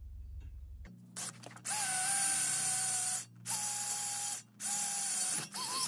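Cordless drill running its twist bit free in three short bursts of about a second each at a steady whine, while cutting oil is applied to the bit from a pump oil can. Near the end the motor's pitch wavers up and down as the trigger is eased.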